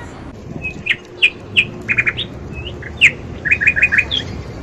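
Small songbird chirping loudly: a string of short, high chirps, with quick runs of three to five repeated notes about two seconds in and again around three and a half seconds.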